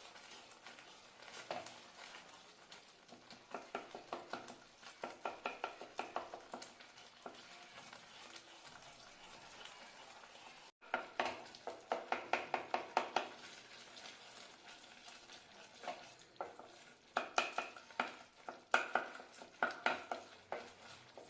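A spatula stirring and scraping thick besan (gram flour) halwa with milk and jaggery around a pan over a low flame. The stirring comes in several runs of quick, sharp strokes, with quieter stretches between them.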